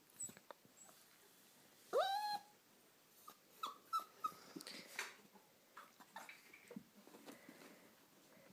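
A poodle puppy gives one short, rising whine about two seconds in, then faint scratching and scuffling as she digs under a couch after her ball.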